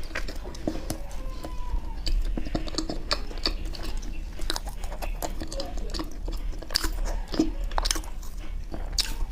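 Close-miked chewing of chocolate ice cream bread: wet mouth clicks and smacks coming irregularly, several a second.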